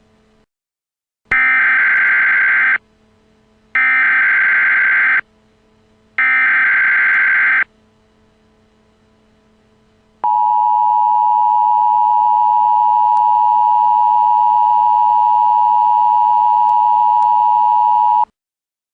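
Emergency Alert System header: three bursts of SAME digital data tones, each a warbling burst of about a second and a half. After a short pause comes the two-tone EAS attention signal (853 and 960 Hz), held steadily for about eight seconds before cutting off abruptly. Together they mark the start of a new emergency alert broadcast.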